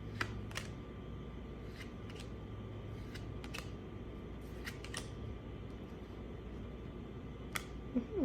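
Baseball trading cards being handled and flipped from a freshly opened pack: scattered light clicks and snaps at irregular intervals, over a steady low hum.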